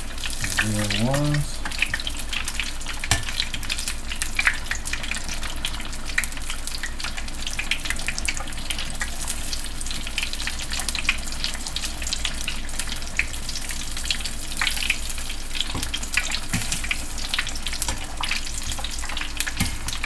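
Egg rolls deep-frying in hot oil: a steady sizzle full of dense, irregular crackling pops.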